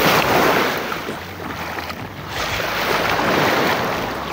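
Small sea waves washing in at the water's edge, two swells of rushing water each lasting a second or two.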